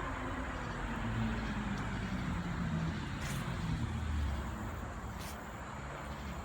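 Road traffic: a motor vehicle passing, its engine note falling as it goes by, over a steady traffic rumble.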